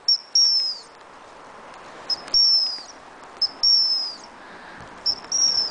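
Gundog training whistle blown in four short-then-long signals, a quick pip followed by a longer high note that sags in pitch as it ends, repeated about every second and a half.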